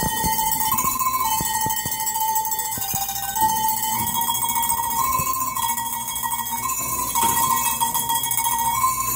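A set of tuned Alpine cowbells rung by hand one after another, playing a melody in a steady rhythm of strikes, each bell ringing on into the next.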